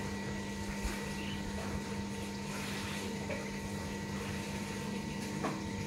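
A kitten chewing and crunching dry cat kibble, with a few faint ticks, over a steady machine hum with a low rumble.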